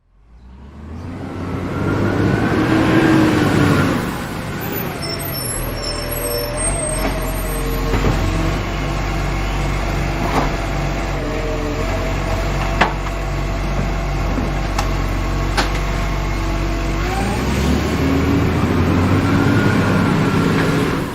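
Truck on a highway: the engine and road noise build up over the first couple of seconds, then hold as a steady low engine drone with a few sharp clicks, and swell again near the end.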